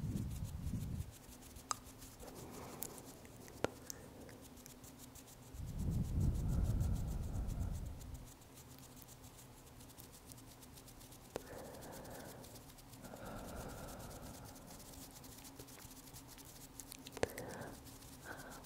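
Soft rubbing and scratching sounds close to a microphone, with a few faint clicks. There is a low rumbling stretch at the start and another about six seconds in.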